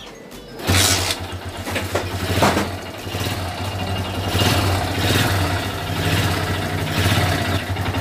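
Motorcycle engine kick-started: it catches about three-quarters of a second in and keeps running steadily. It starts because the hidden anti-theft kill switch is off, leaving the CDI ungrounded.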